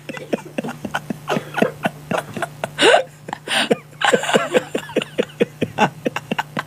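A man laughing hard and long, in quick breathy pulses of laughter, several a second.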